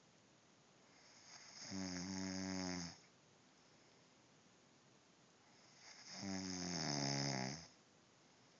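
A person snoring: two long snores about four seconds apart, each a low pitched drone with a breathy hiss on top.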